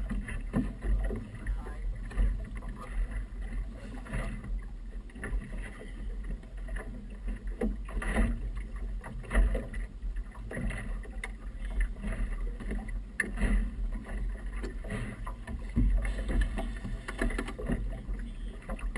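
Choppy river water slapping and splashing against the hull of a small outboard motorboat in irregular knocks, over a steady low rumble.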